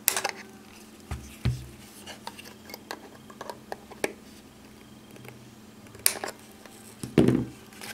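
Small flush cutters snipping the excess coil leg wire on a rebuildable atomizer deck: a sharp snap right at the start and another about six seconds in, with small metallic tool-handling clicks between them and a duller knock near the end.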